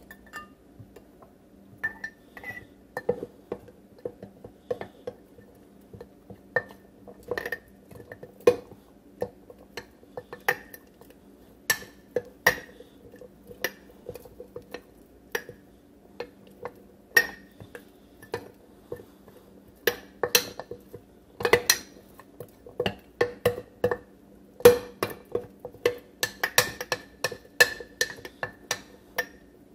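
Metal spoon stirring sourdough starter in a glass jar, clinking against the glass at irregular intervals, with the clinks coming more often in the second half.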